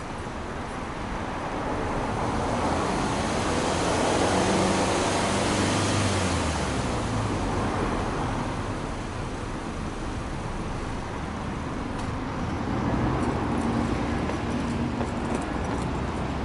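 Exhaust of a Subaru Impreza Sport 2.0i-S's 2.0-litre flat-four boxer engine, running with the car parked and heard close at the rear bumper. The sound swells about three to five seconds in, eases off, and swells again near the end.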